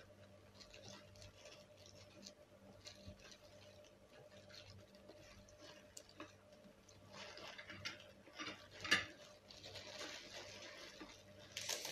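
Faint eating sounds: crab being picked apart by hands in plastic gloves, with soft crinkling and scattered small clicks that grow busier after about seven seconds, and a louder click about nine seconds in.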